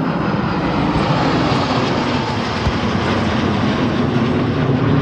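Jet aircraft engine noise from a display flypast: a loud, steady, dense rushing sound with no clear pitch.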